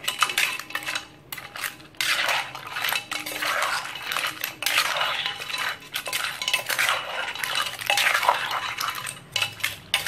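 Metal spoon scraping and clinking against a clay mortar as a wet papaya salad is tossed, in quick irregular strokes about one or two a second.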